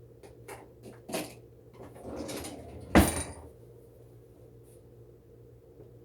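Kitchen handling noises: several light knocks and a short scrape of utensils and dishes, with one loud sharp knock about three seconds in, then quiet.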